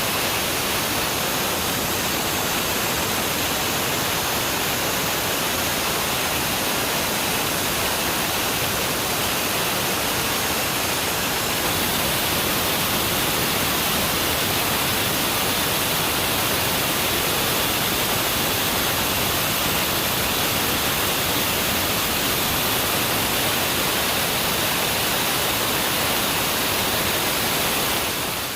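Sawmill running, a steady loud rushing hiss with no distinct pitch that dips briefly near the end.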